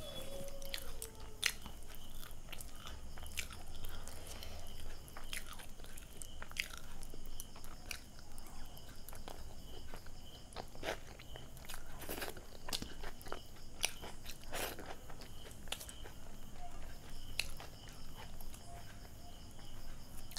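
Close-miked chewing and mouth sounds of someone eating pav bhaji (vegetable mash and soft bread roll): irregular wet smacks and clicks throughout, picked up by a clip-on lapel microphone.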